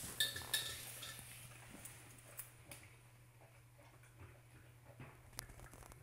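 A dog eating from a metal food bowl: irregular small clicks and crunches, with two louder clinks of the bowl ringing just after the start. A faint steady hum runs underneath.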